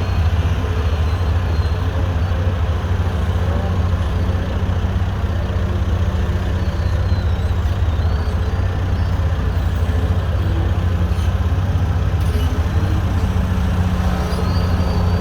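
A large excavator's diesel engine running steadily with a deep, even drone.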